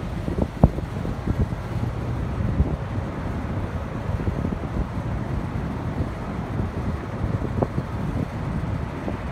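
Wind rumbling on the microphone over a steady low city hum, with a few sharp pops.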